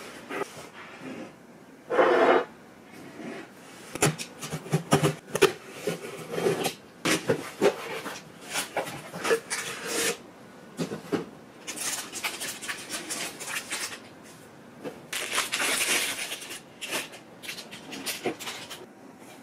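A cardboard shipping box being handled and opened: knocks, scrapes and rustling as its flaps are folded back and a boxed product is slid out, with a loud thud about two seconds in.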